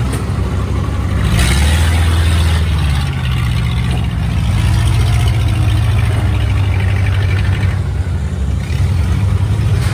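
Kubota tractor's diesel engine running loudly and steadily while it hauls sacks of harvested rice, its note heavier for a second or two near the start.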